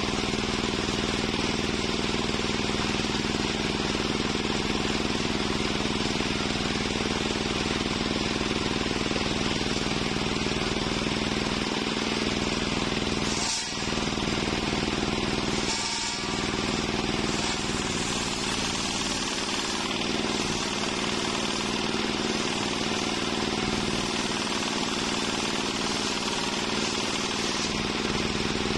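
Homemade table circular saw running steadily, its large blade ripping logs of waru wood. The noise dips briefly twice, a couple of seconds apart, about halfway through.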